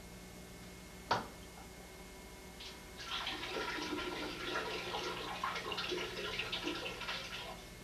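A sharp click about a second in, then rushing, gurgling water for about four and a half seconds, stopping near the end.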